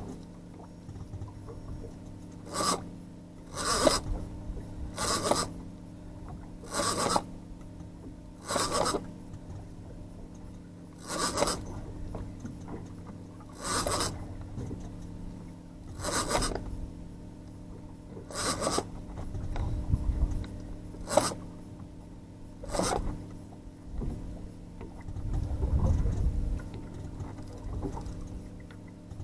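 Heavy conventional trolling reel rasping in about a dozen short bursts, one every one to two seconds, under the strain of a big amberjack fighting on the line.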